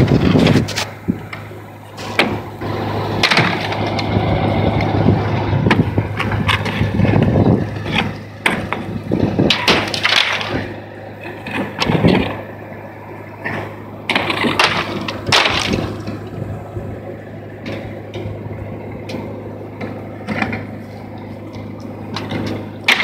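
150-year-old roofing slates cracking and clattering as they are stripped from a barn roof, in irregular sharp cracks and knocks, with a steady low hum underneath.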